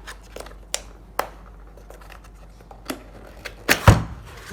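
A cardboard keyboard box being opened by hand: a few sharp taps and clicks, then a louder knock and thud near the end as the lid or packing is moved.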